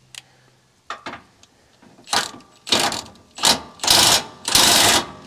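Cordless Milwaukee Fuel impact wrench with a 21 mm impact socket hammering on a truck's rear shock absorber mounting bolt to loosen it, in about five short trigger bursts starting about two seconds in, the last one the longest. A couple of light clicks come before it.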